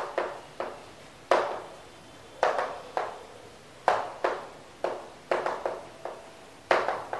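Chalk striking and scraping on a blackboard as words are written: about a dozen short, sharp strokes at uneven intervals, each fading quickly.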